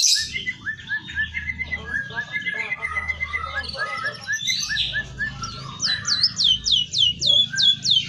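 Caged white-headed munia (emprit kaji) singing: a run of quick chirps, then from about the middle a fast series of whistled notes, each sliding sharply down in pitch, about five a second. The song is filled in with canary and white-rumped shama phrases.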